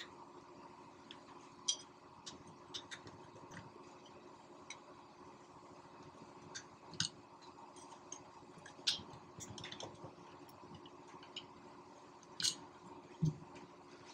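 Flat screwdriver prying apart the housing halves of a Bosch alternator: scattered sharp metal clicks and scrapes, with one dull knock near the end as the housing comes loose from the rotor.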